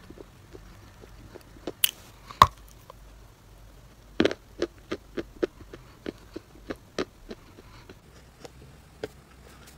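A mouthful of chalk clay being chewed: a run of short, crisp crunches and clicks, roughly two or three a second, with the sharpest crunches about two and a half and four seconds in.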